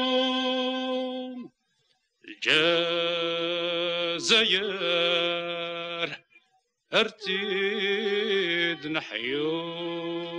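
A man singing long, drawn-out notes without accompaniment, in a chant-like style. There are three held phrases, with short silences about a second and a half in and again around six seconds.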